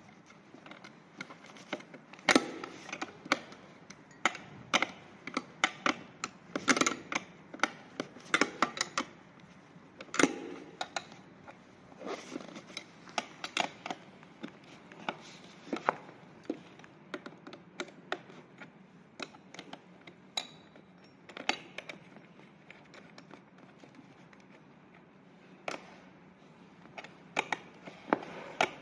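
A metal wrench clicking and clinking against the steel seat clamp and spring frame as the clamp bolt is worked, in irregular sharp bursts with a lull a little past twenty seconds in.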